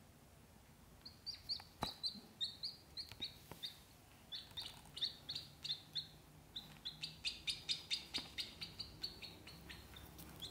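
Ducklings peeping in runs of short, high calls, a few a second, starting about a second in, with a short break near the middle and a quicker run in the second half. A couple of faint clicks sound among the early calls.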